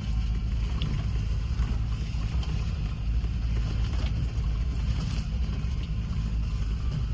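Land Rover Discovery crawling along a rough off-road trail: a steady low engine rumble with a few faint clicks and knocks scattered through it.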